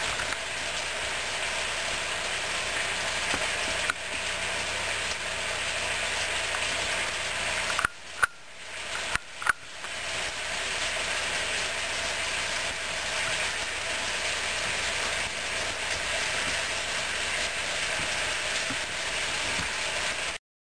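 Steady hiss of background noise, with a brief drop and a few sharp clicks about eight to ten seconds in.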